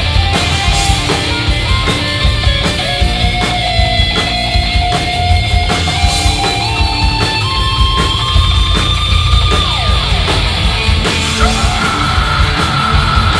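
A live rock band playing heavy rock: two electric guitars, bass and drums, with a lead line of long held notes that steps upward in pitch and slides down about ten seconds in, followed by a new held high note.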